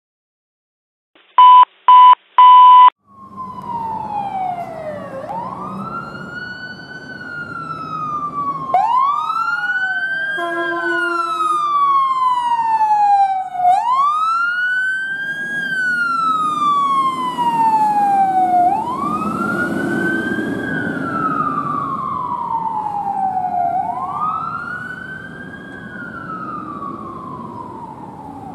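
Three short, very loud beeps near the start. Then a fire engine's siren wails, sweeping up quickly and falling more slowly about every five seconds, over the rumble of the truck's engine. A brief steady horn note sounds about ten seconds in.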